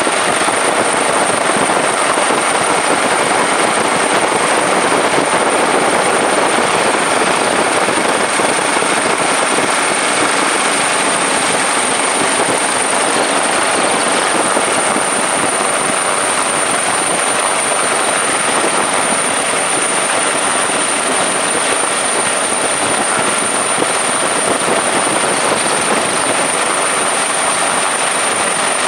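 Helicopter noise heard from on board: a loud, steady rush of turbine and rotor with a thin, steady high whine on top.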